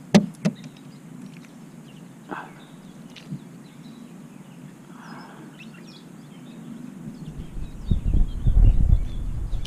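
Handling sounds of unhooking a small smallmouth bass in a kayak: a few sharp clicks and knocks, three close together at the start and two more singly a few seconds later, with faint bird chirps behind. Near the end a loud low buffeting rumble on the microphone as the fish is lifted up to the camera.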